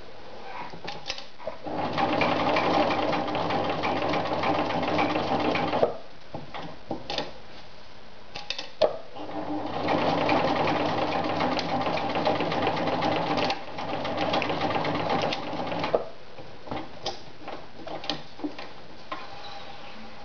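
Riccar 1300 sewing machine stitching through several layers of heavy material in two runs of about four and six seconds, the second run going softer for its last couple of seconds. Sharp clicks and knocks from handling the work come between and after the runs.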